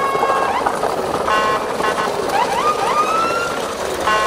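Edited-in background soundtrack with repeated rising, siren-like swoops that level off into a held tone, broken up by short chord stabs.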